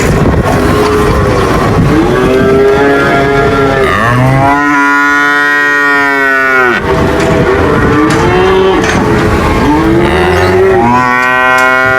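Cattle mooing: several calls, the longest starting about four seconds in and lasting nearly three seconds, and another long moo beginning near the end, over a noisy background.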